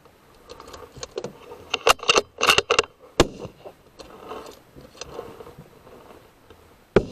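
Rifle handling: clicks and metallic rattles, like a bolt being worked, with two sharp shot-like reports, one about three seconds in and one near the end.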